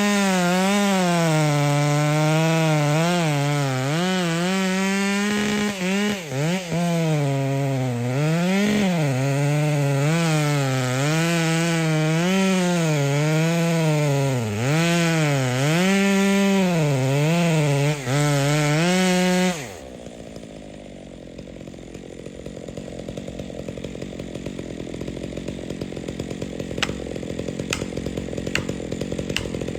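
Chainsaw cutting pine timber, its engine pitch rising and dipping as the chain loads and frees in the cut, then cutting off suddenly about two-thirds of the way through. A quieter, low rumble follows, with a few sharp cracks near the end.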